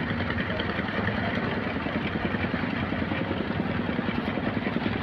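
Fishing boat's inboard engine running steadily at constant speed with an even, rapid chug.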